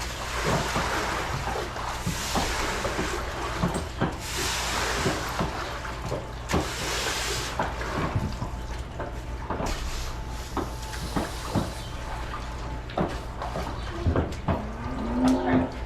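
Broom pushing floodwater across a barn floor in long swishes, with scattered knocks and clatter, over a steady low machine hum.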